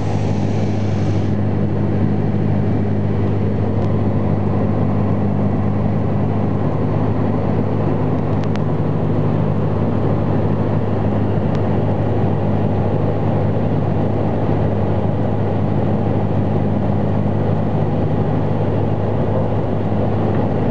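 Light aircraft's piston engine and propeller droning steadily, heard from inside the cockpit, with a low, even hum.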